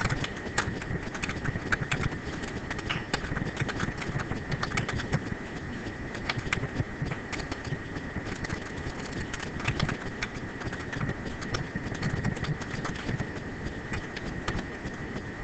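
Computer keyboard typing: irregular quick key clicks, several a second, over a steady high-pitched hum and low room noise.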